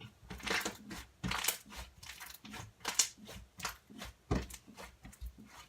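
Crunchy slime being squeezed and poked by hand, giving a quick, irregular run of crackles and pops.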